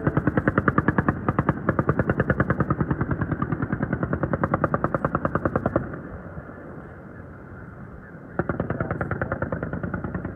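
The AH-1Z Viper's 20 mm M197 three-barrel rotary cannon firing, heard as a rapid, even rattle of about a dozen reports a second. One long burst stops about six seconds in, and a second burst starts a couple of seconds later.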